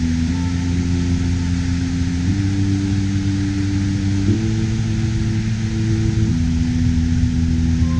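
Background music of sustained synthesizer chords that shift to a new chord about every two seconds, over a steady even hiss.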